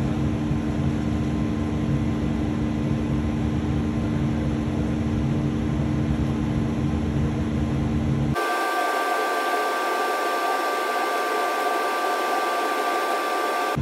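Steady roar and hum of a hot-glass studio's burners and fans, with a constant low two-pitched hum. About eight seconds in the sound changes abruptly to a thinner hiss carrying steady higher whining tones.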